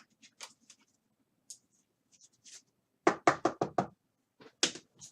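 Knocking: a quick run of five sharp knocks, then one more knock a moment later, after a few faint clicks of cards being handled.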